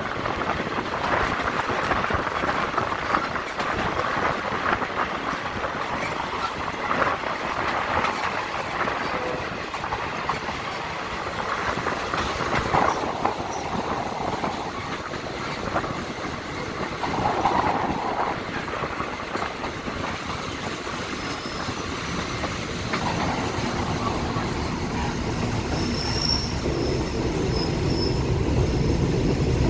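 Railway carriages of a commuter train rolling slowly into a station, wheels clicking over rail joints and points with a steady rumble. Brief high-pitched wheel squeals come near the end as the train slows, and the low rumble grows louder in the last few seconds.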